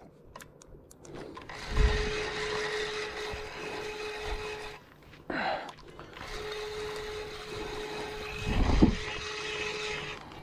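Spinning reel being cranked, its gears whirring with a steady whine as line is wound in while a hooked carp is played. It runs in two spells with a short break between, and two low thumps come about 2 s in and near the end.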